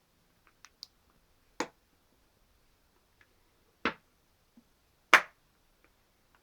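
Three sharp snaps a second or two apart, the last the loudest, after a few faint ticks.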